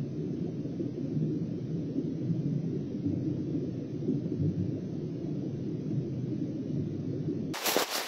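Steady low, muffled rumble picked up by an underwater camera's microphone in its sealed housing beneath the ice. About seven and a half seconds in it cuts to footsteps crunching on snow-covered ice.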